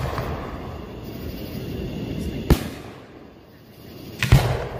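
Fireworks display: aerial shells bursting with sharp booms, one about halfway through and another near the end, with a rumbling tail after each.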